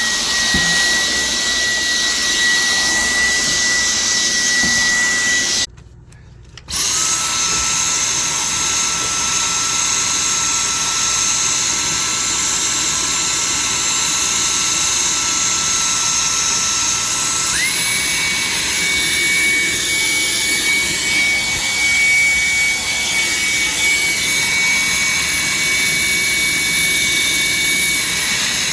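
Vacuum cleaner running with a steady high motor whine while sucking dust off refrigerator condenser coils. It shuts off briefly about six seconds in and starts again a second later with a lower whine, and the whine steps higher about seventeen seconds in.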